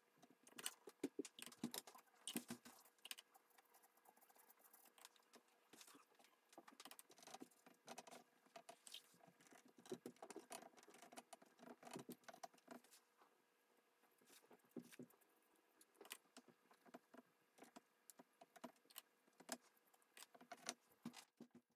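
A watercolour brush working on paper: many faint, irregular taps, dabs and clicks as paint is laid on, over a faint steady hum.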